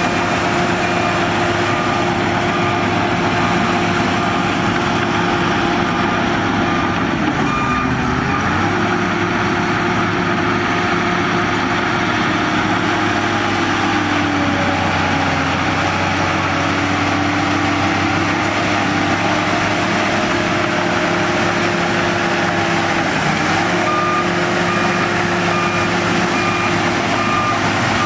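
Shantui DH17 bulldozer's diesel engine running steadily under work, its pitch sagging and recovering twice as it takes load. A reversing alarm beeps about once a second at the start and again near the end.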